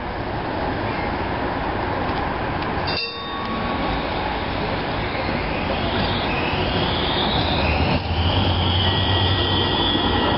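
Alstom Citadis low-floor tram pulling away and passing close: rail and running noise building up, with a whine that rises in pitch as it accelerates and then holds as a steady high whine over a low hum.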